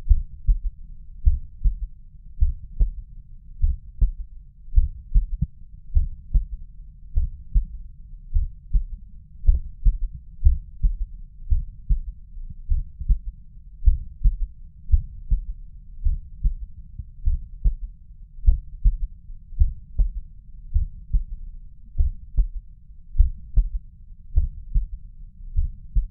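Human heartbeat heard through a stethoscope at the mitral area (cardiac apex): a steady, regular run of low, dull thuds. The uploader hears a third heart sound (S3) with the beats in this position.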